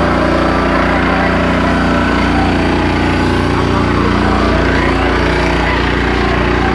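A small boat engine running steadily under way, pushing a passenger boat along.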